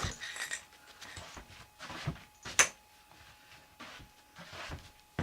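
Handling noise of dolls being moved and set down: scattered rustles and soft knocks, with one sharp knock about two and a half seconds in.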